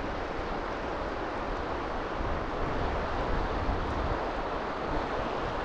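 Steady rushing of river water over a riffle, heard from a camera held right at the water's surface.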